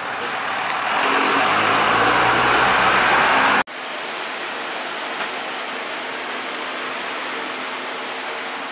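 Street noise with a motor vehicle's engine running close by, growing louder for a couple of seconds. It cuts off abruptly about three and a half seconds in, giving way to a steady, even hiss of indoor room noise.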